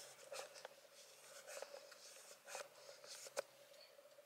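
Near silence: faint rubbing and a few light clicks of a phone camera being handled, with her lens in question, over a faint steady hum.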